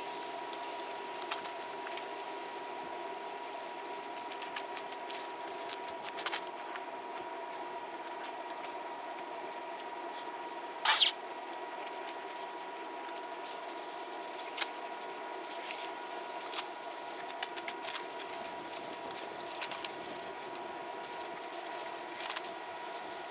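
Soapy wash mitt rubbing over a car's painted body panels, with scattered small squeaks and taps and one short, louder burst about eleven seconds in, over a steady hum.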